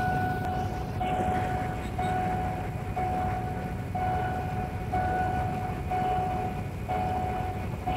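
Level-crossing warning alarm sounding a steady tone from the signal's loudspeaker, repeating about once a second with short breaks. Under it is the low rumble of the passenger train running through the crossing.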